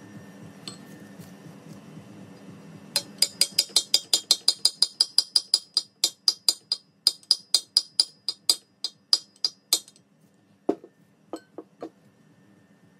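A hammer tapping on metal in a quick run of sharp, ringing blows, about four a second, then a few single taps near the end. This is the kind of tapping used to drive in engine-block parts such as core plugs or cylinder liners.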